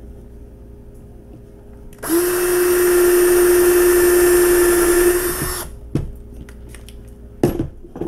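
Cordless drill with a small bit running at a steady speed for about three and a half seconds, starting about two seconds in, as it drills a screw hole into a diecast metal toy car body, then winding down. A couple of sharp knocks follow near the end.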